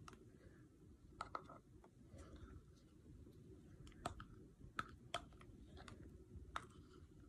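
A plastic spoon scraping and tapping against a plastic jar as hair product is scooped out, a handful of faint, scattered clicks.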